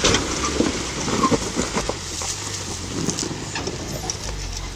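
Nissan Patrol 4WD engine running at low revs as it crawls over rough, steep ground, with scattered cracks and knocks throughout.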